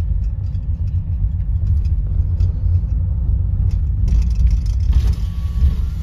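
Car driving over a sandy dirt track, heard from inside the cabin: a steady low rumble of engine and tyres with scattered light rattles. About four seconds in a hiss joins the rumble.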